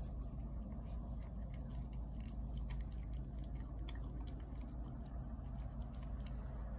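Domestic cat eating wet food from a plate close by: a run of small, irregular wet clicks and smacks of chewing and lapping, over a steady low hum.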